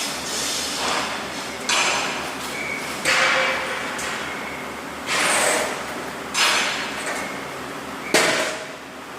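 A series of six sharp metallic knocks, one every one to two seconds, each ringing out and fading over about a second.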